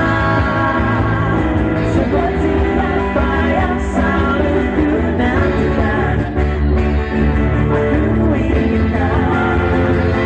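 Live band playing a song, with an electronic keyboard and singing over a steady full bass and drum backing.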